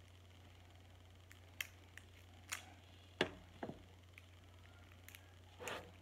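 Crab shell snapping and cracking as it is picked apart by hand: a few short sharp clicks, the loudest about three seconds in and a longer crunch near the end, over a low steady hum.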